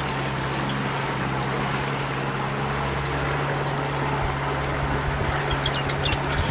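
Steady low engine hum with a broad rushing noise under it, most likely the motor of the boat the swim is watched from. Near the end come two short, high chirps that fall in pitch, from a bird.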